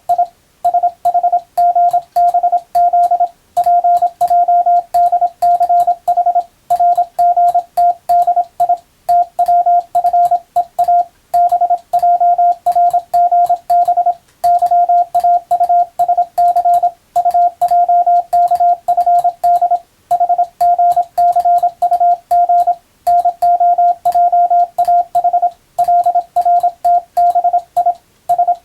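Morse code (CW) as a single steady beep tone, keyed on and off rapidly in dots and dashes, with short pauses between the letter groups.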